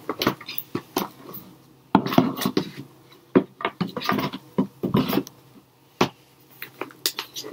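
Cardboard box of an eyeshadow palette being opened and handled: irregular scratching and rustling with sharp clicks and taps.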